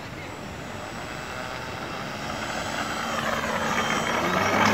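Motor and propeller of a home-made RC fixed-wing plane whining as it throttles up, growing steadily louder over the second half, its pitch wavering up and down.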